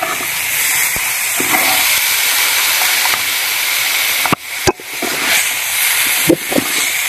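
Mashed-potato samosa filling sizzling in a hot oiled metal pan as it is stirred with a spatula, a steady hiss. A few knocks of the spatula against the pan come about four and a half and six seconds in.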